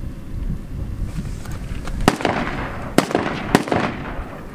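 Several gunshots in quick succession: sharp cracks about two seconds in, at three seconds and again half a second later, each trailing off in an echo.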